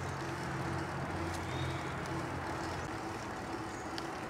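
Steady rush of wind and rolling tyre noise from a mountain bike being ridden along a trail, with a low rumble that drops away about three seconds in.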